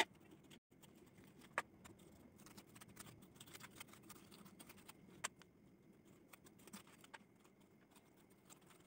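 Faint scraping and soft clicks of a knife digging the flesh out of a hollowed watermelon half, with a few sharper taps of the blade against the rind, one about a second and a half in and one about five seconds in.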